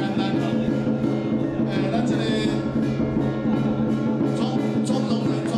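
Music with sustained tones and regularly spaced percussion strikes.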